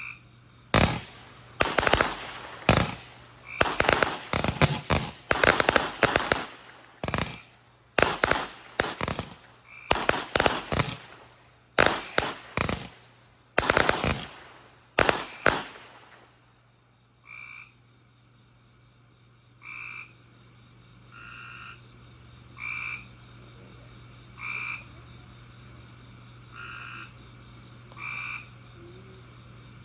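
Fireworks going off in a quick, uneven series of sharp bangs for about fifteen seconds. They stop, leaving a frog calling in short, regularly repeated croaks about every second and a half to two seconds.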